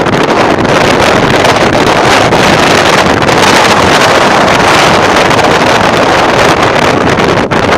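Strong wind buffeting the microphone: a loud, continuous rumbling roar.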